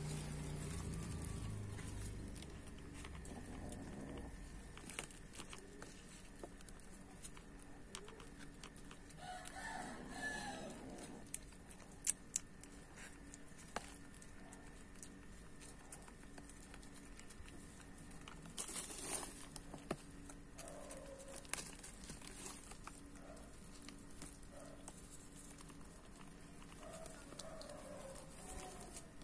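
A rooster crowing once, about ten seconds in, with short chicken clucks later on. A low rumble fades over the first few seconds, and a couple of sharp clicks come about twelve seconds in.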